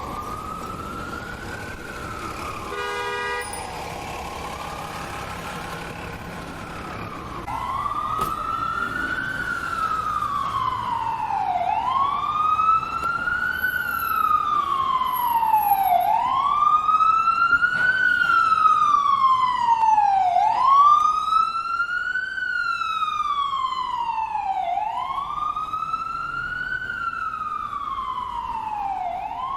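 Ambulance siren wailing, rising and falling about once every four seconds. It grows clearly louder about a quarter of the way in, is loudest in the second half, and eases off a little near the end. A brief steady tone sounds about three seconds in.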